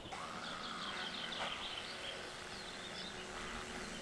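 Quiet outdoor ambience with a small songbird trilling: a quick run of short, high, repeated chirps in the first second and a half, then only faint background hiss.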